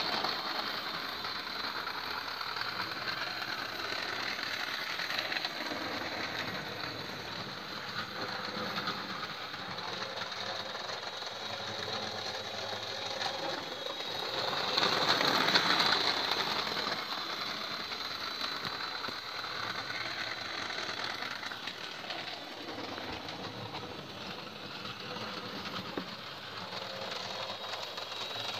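Electric model train running on the layout's track, its small motor whirring and its wheels rattling steadily over the rails. It grows louder for a couple of seconds about halfway through, then settles back.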